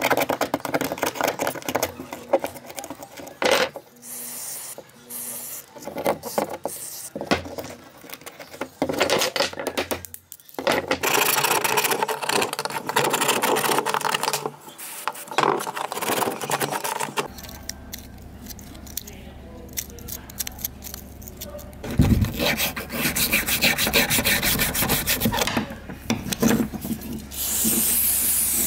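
Metal tools scraping and rubbing on an old fan's rusty push-button switch block, with scattered clicks and knocks as it is worked on by hand. Near the end there is a denser, hissier stretch of scrubbing, like a wire brush on the metal.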